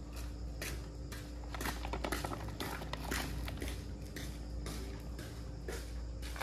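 Handling noise from a cardboard firework cake box being tilted and turned on concrete: scattered light scuffs, taps and rustles over a steady low hum.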